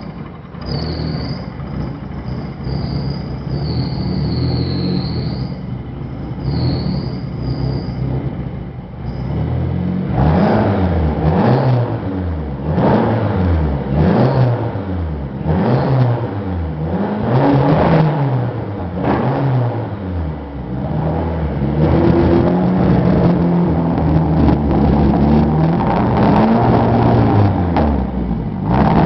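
A 1995 Eagle Talon TSi's turbocharged 4G63 four-cylinder running rough, with a high wavering whine over the first several seconds, then revved up and down again and again from about ten seconds in, with sharp cracks through the revs. The owner suspects it has jumped timing after a new timing and balance-shaft belt.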